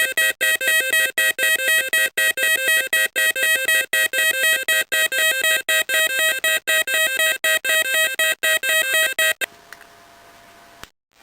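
Homemade electronic drone machine's audio oscillators sounding a fast, rhythmic pulsing beat made of several high tones together. It cuts off suddenly about nine seconds in, leaving a faint steady tone and a click near the end.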